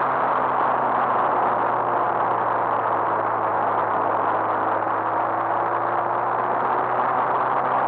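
Motorcycle riding at a steady pace: a steady engine hum with a slight slow drift in pitch, under a constant rush of wind noise on the bike-mounted camera's microphone.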